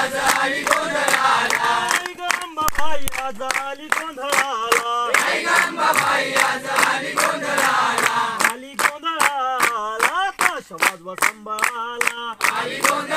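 A group of people singing together in chorus while clapping their hands to a steady rhythm.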